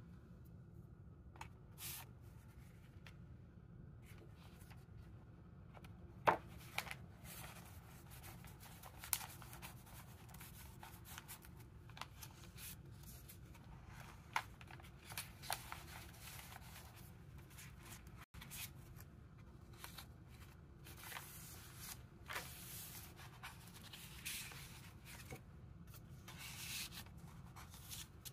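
Paper rustling and sliding as a handmade paper journal's tags and pages are handled: a tag slid out of its pocket and pages turned, with scattered light taps and clicks over a faint, steady low hum.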